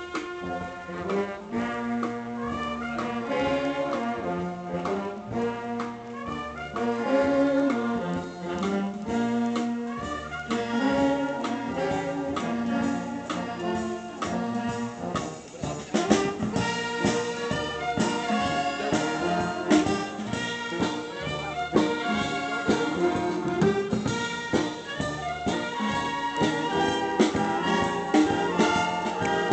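An open-air wind band of clarinets, saxophones, brass and drum kit playing a tune, with the melody carried by the wind and brass. About halfway through, the drums come in more strongly and the band plays louder.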